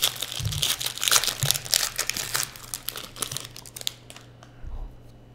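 Foil wrapper of a Panini Prizm trading-card pack crinkling as hands open it and pull the cards out. The crackle dies down about four seconds in.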